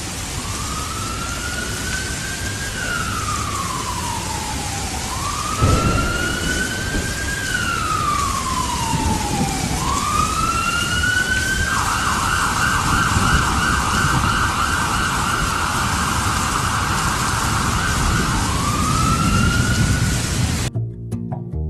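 SAMU ambulance siren sounding over street noise: a slow wail rising and falling about every three and a half seconds, switching a little past halfway to a fast yelp, then back to the wail. There is a thump about six seconds in, and the siren cuts off abruptly just before the end.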